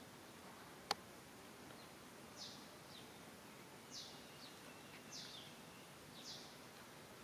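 Faint, short, high chirps falling in pitch, about one a second, over a quiet outdoor background, with a single sharp click about a second in.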